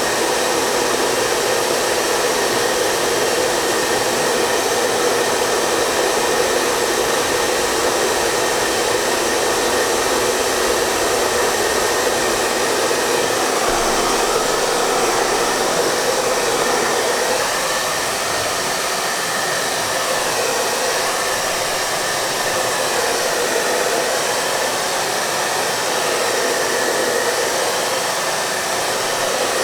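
Hair dryer running continuously, a steady blowing noise with a faint motor hum in it.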